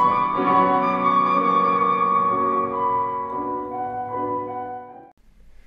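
Live recital music: a flute playing long held notes with piano accompaniment. It cuts off suddenly about five seconds in.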